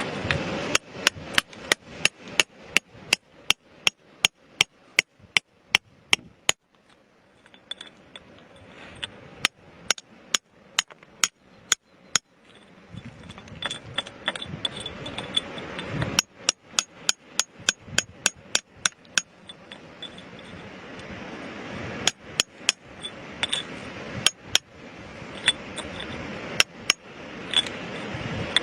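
Hammer striking rock again and again: sharp ringing blows about two or three a second, in runs broken by short pauses.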